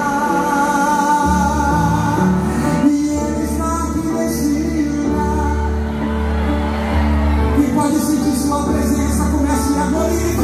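Live gospel band music with a singer's held, wavering notes over electric guitar and keyboard chords; a deep bass line comes in about a second in.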